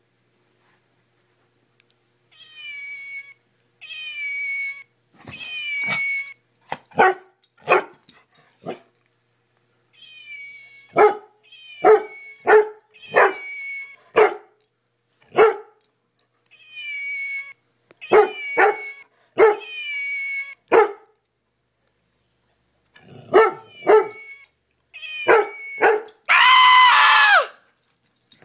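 Dog play-barking at a plush toy: high whining yips and sharp barks in bursts with short pauses, ending in one longer, louder call.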